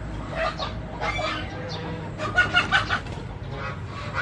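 A hen clucking in several short bursts of calls, the loudest group a little past the middle.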